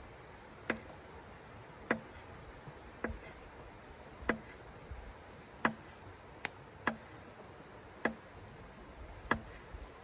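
Knife blade tapping a hard board as each cut goes through: sharp, evenly spaced clicks, about one a second.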